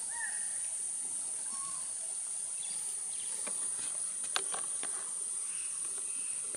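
Steady, high-pitched drone of insects. A single short bird call sounds near the start, and a few sharp clicks come in the second half.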